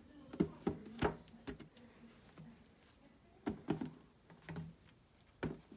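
A cardboard shoebox and a pair of sneakers being handled and set down on a glass-topped table: a scatter of light knocks and taps, about eight in all.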